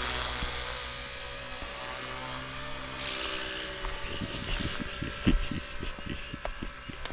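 Small electric RC scale Huey helicopter in flight: its motor and rotors give a steady high-pitched whine. A low hum fades out about halfway through, and irregular low thuds run through the second half.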